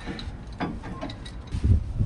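Ratchet wrench clicking a few times as a suspension bolt on the panhard bar is tightened, with dull low knocks from tool and metal near the end.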